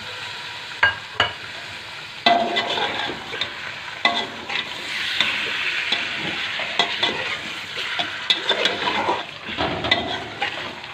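Raw beef pieces sizzling in hot oil with fried onions in a pressure cooker, stirred with a metal spatula that scrapes and clicks against the pot. The sizzle grows louder about two seconds in.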